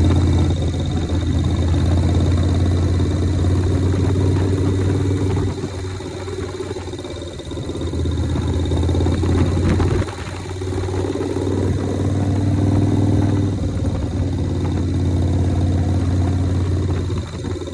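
1983 Harley-Davidson Shovelhead V-twin engine running, with a strong low beat. It gets quieter for a couple of seconds about six seconds in, dips briefly at about ten seconds, and falls off again near the end.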